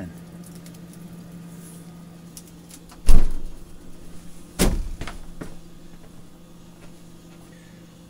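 A freezer's compressor runs with a steady low hum, drawing power from a portable power station's inverter. Two loud thumps land about three seconds in and a second and a half later, followed by a lighter knock.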